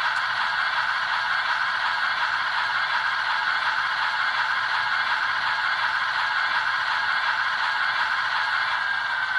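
Model Alco switcher locomotive's small electric motor and gears running at low speed: a steady whine over a hiss, with the pitch starting to drop near the end as it slows.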